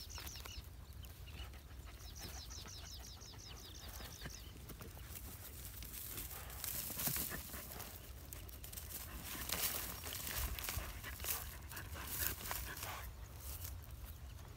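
Dogs scratching and nosing into a mound of dry, crumbly dirt clods, with irregular scrapes and crunches of soil that grow busier from about six seconds in. A rapid high chirping trill sounds near the start and again about two seconds in.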